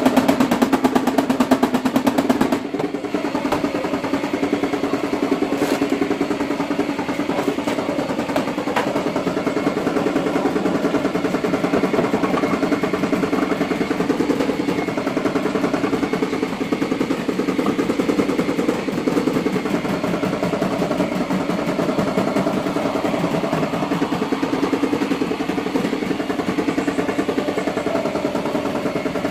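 Rapid light tapping on a car's sheet-metal fender, a dense run of small clicks, for about the first two and a half seconds, typical of tapping down high spots in paintless dent repair. It then gives way to a steady mechanical hum with a fine rapid pulse.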